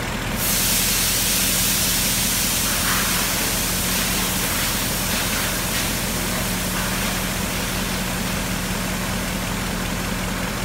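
Ford Mustang GT's 5.0 V8 engine idling with a steady hum, under a loud rushing hiss of air that starts about half a second in.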